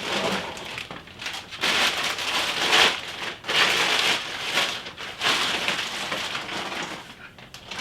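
Rustling and crinkling of packaging being handled, an uneven crackly hiss that swells and fades several times.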